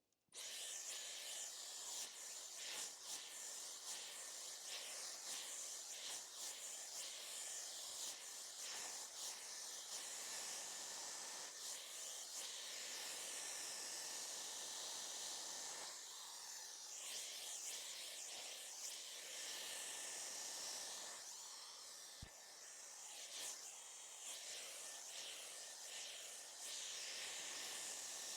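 Hair dryer running steadily, blowing air with a faint high whine, its rushing sound rising and falling slightly as it moves.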